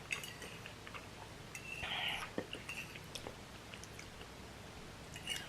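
Close-up eating sounds while finishing spicy ramen noodles: soft chewing with small wet mouth clicks, and one louder breathy rush of air about two seconds in.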